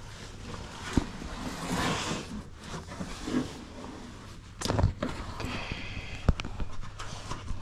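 Scrambling noise from a handheld camera moving up sandstone rock: scattered knocks and scuffs over a low rumbling rustle, with the heaviest thump a little before five seconds in.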